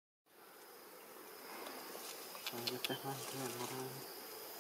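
Steady buzzing of insects as a high background hiss, with a few sharp clicks and a low voice murmuring briefly about halfway.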